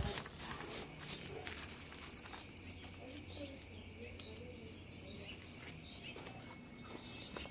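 Soft handling noises: a few light rustles and clicks of fingers working in a pot of soil among fern fronds, mostly in the first second, over a quiet outdoor background with a faint bird chirp a couple of seconds in.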